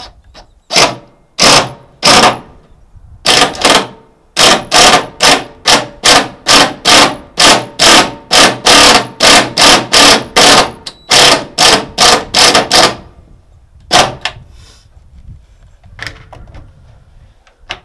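Cordless Porter-Cable 20V impact driver hammering screws into the aluminum gunwale of a jon boat, run in short bursts about two a second for some twelve seconds, with one more burst near the end.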